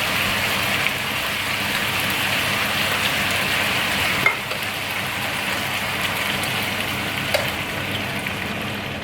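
Canned coconut milk steadily sizzling and bubbling in a hot pan for a green curry, with a utensil tapping the pan twice.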